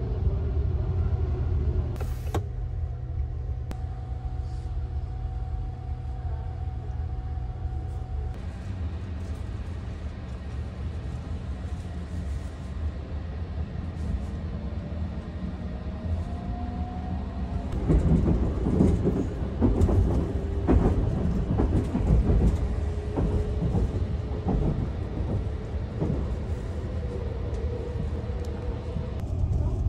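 Running noise inside a 285-series Sunrise Express sleeper train in motion: a steady low rumble of wheels on rails with a faint steady whine. About two-thirds of the way through comes a burst of loud clattering.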